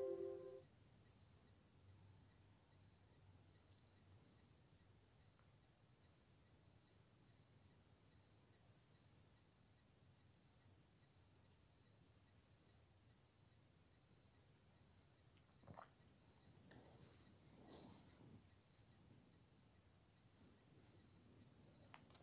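Near silence: a faint steady high-pitched tone of recording noise. The tail of a music note dies away in the first half second.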